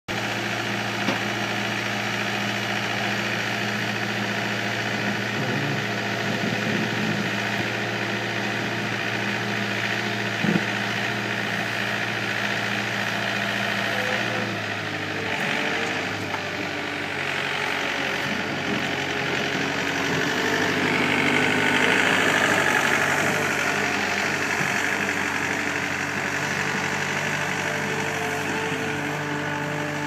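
Takeuchi TL240 compact track loader's diesel engine running steadily as the machine carries a stack of harvest bins, its engine note shifting about halfway through and growing louder with a higher whine in the second half. Two sharp knocks come early and about a third of the way in.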